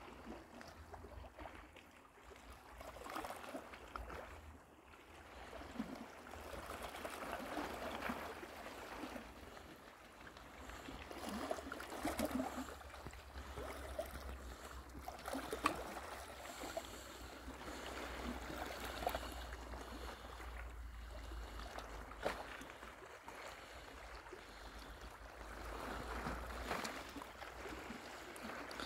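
Small waves lapping against shore rocks on a calm sea, swelling and fading every few seconds, over a steady low rumble.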